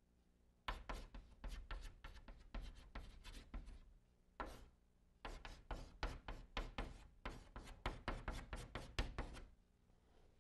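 Chalk writing on a blackboard: quick taps and scrapes of chalk strokes. They run in two spells with a short gap about four seconds in, and stop about a second before the end.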